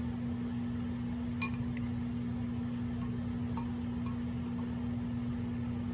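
A few faint, light clinks of an eating utensil against a dish, spread over a few seconds, over a steady low electrical hum.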